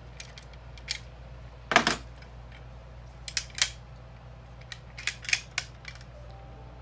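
Metal parts of a quilting-frame sidearm bracket clicking and knocking as they are handled and fitted together: a handful of separate knocks, the loudest about two seconds in, with a steady low hum underneath.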